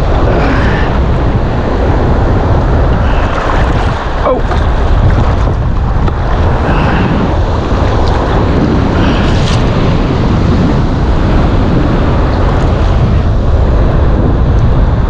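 Rough surf washing and breaking around the wader, with a steady low rumble of wind buffeting the camera microphone.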